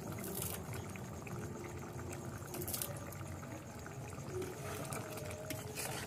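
Chicken curry gravy bubbling at a steady simmer in a metal kadai, with two brief sharper noises about half a second and two and a half seconds in.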